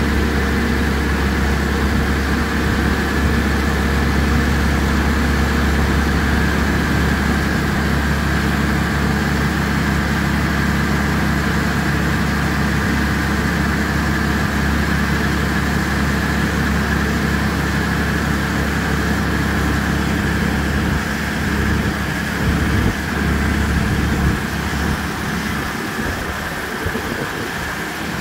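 Allis-Chalmers D19 tractor's six-cylinder engine running steadily at low speed while the front loader is worked. The engine note becomes uneven and wavers over the last several seconds.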